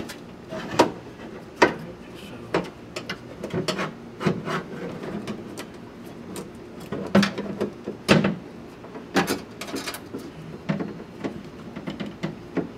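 Power-window regulator and motor assembly being worked out of a truck door's inner panel openings: irregular knocks, clicks and rattles of the assembly bumping against the door's sheet metal, with a few sharper knocks along the way.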